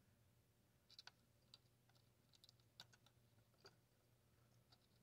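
Near silence, with faint scattered clicks and ticks of small electronic components being handled over a circuit board, over a faint steady low hum.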